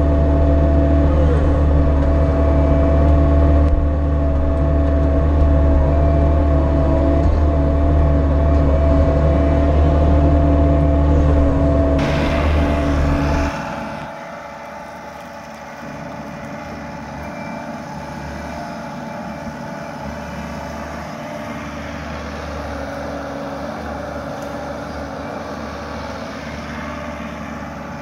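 Bobcat E42 mini excavator's diesel engine running with a steady drone, loud from the operator's seat. About thirteen and a half seconds in, the sound drops suddenly to the same machine heard quieter from outside while it digs.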